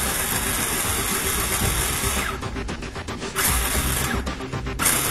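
RC car's electric motor, driven through a Tekin FX speed controller, revving in sharp bursts: one of about two seconds, then two short ones, each coming up to speed almost at once as the extreme throttle profile makes the motor respond to only a small trigger movement. Background music runs underneath.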